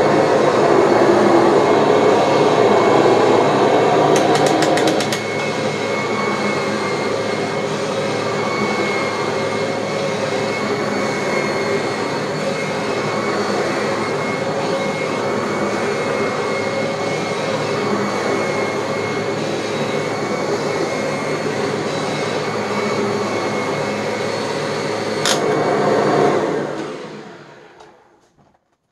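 Kirby G-series upright vacuum cleaner running with its freshly refurbished transmission, a steady high whine riding over the motor: the classic Kirby transmission whine, improved a bit but not eliminated. A rapid run of clicks about four to five seconds in is followed by a slightly quieter run. Near the end a click comes, the motor is switched off, and it winds down to silence.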